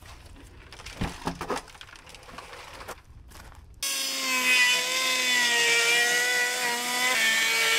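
Faint scraping and a few knocks, then a power saw starts abruptly a little under four seconds in and runs steadily at high speed. Its pitch drops a little about seven seconds in.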